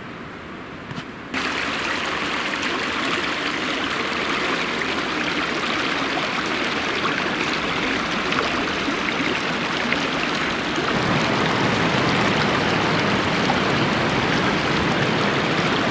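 Small forest stream running, a steady rush of water; it comes in suddenly about a second in, after a fainter hiss.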